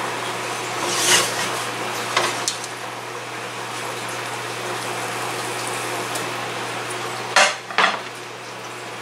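White ceramic Corningware baking dish clinking and scraping on the oven's wire rack as it is lifted out of the oven, with a few light clinks early and two sharp, louder clanks near the end, over a steady low hum.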